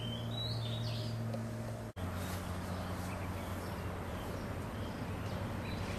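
Birds chirping a few times over a steady low hum, with a brief dropout about two seconds in.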